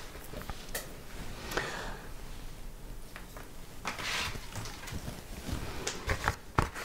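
A few light clicks and brief rustles of handling noise over a quiet room; near the end, a paper mailer is picked up and rustles.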